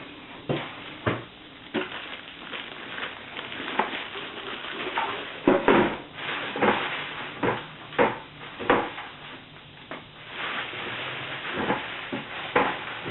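Cardboard box and packaging being opened and handled: irregular rustling, scraping and sharp knocks at uneven intervals.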